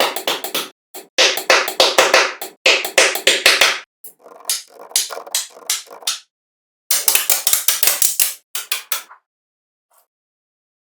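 Clusters of rapid, sharp taps and clicks, with several silent gaps between the clusters.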